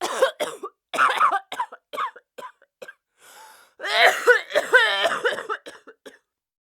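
A person coughing: a run of short coughs over the first three seconds, then, after a brief gap, a longer bout of coughs that stops about six seconds in.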